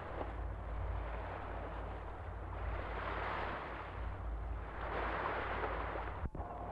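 Wind rushing over the microphone, swelling and easing, over a steady low rumble from the yacht's engine; the sound cuts out for an instant near the end.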